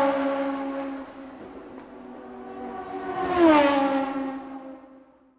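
A vehicle's engine note passing at speed, twice, as an intro sound effect: the first pass is already going away and fading, the second swells to its loudest about three and a half seconds in, drops in pitch as it goes by, then fades out.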